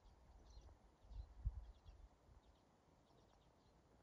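Near silence in the open, with faint small-bird chirps repeating throughout and a brief low rumble about a second and a half in.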